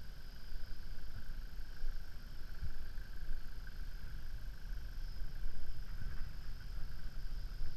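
Steady insect chorus, a high continuous buzzing, over an irregular low rumble.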